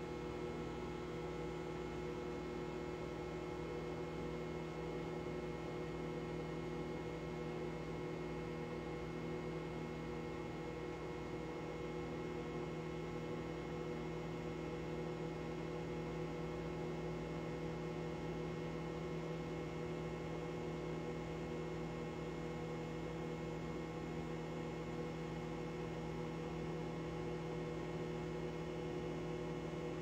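GE over-the-range microwave oven running while it heats water: a steady electrical hum over an even whir, unchanging throughout.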